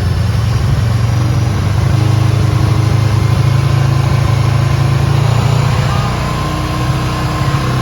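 Gaojin GK500 motorcycle engine idling steadily with the bike stationary. The owner hears a buzzing noise from it, which the title puts down to the fuel tank cap rather than the timing chain.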